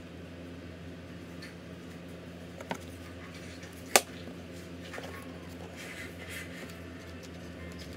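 Small handling sounds on a wooden desktop: a light knock a little before three seconds in, then a single sharp click at about four seconds as a pair of metal scissors is set down on the desk, followed by a soft rustle of paper sticker sheets being picked up, over a steady low hum.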